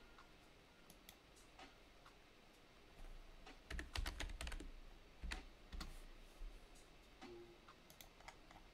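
Quiet computer keyboard typing: scattered single keystrokes, with a quick run of keys about four seconds in.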